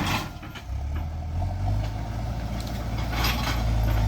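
Heavy land-clearing machine's engine running steadily with a deep hum, growing louder in the second half, with a couple of short bursts of rustling noise over it.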